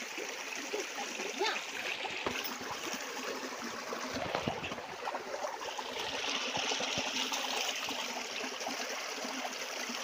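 Shallow stream trickling and gurgling over rocks, a steady wash of running water that grows a little louder after about six seconds. A few low thuds sound between about two and five seconds in.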